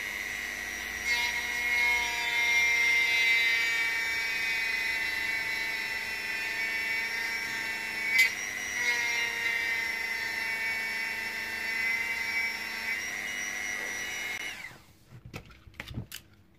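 Dremel rotary tool with a metal cutting bit running at a steady high-pitched whine while grinding down excess glue-hardened cotton filler, its pitch shifting slightly under load. It switches off near the end, followed by a few faint clicks.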